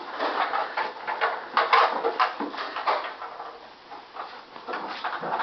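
Nerf blasters being handled, primed and fired: irregular plastic clacks and snaps, several of them close together about a second and a half to two seconds in.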